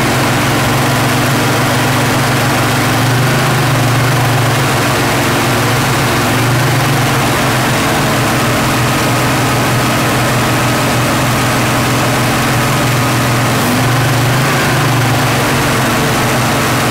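1968 Mercury Cougar V8 running steadily at a fast idle of around 2200 rpm, with its speed lifting briefly three times. The high idle comes from a carburettor not yet tuned; the owner wants it closer to 1000 rpm.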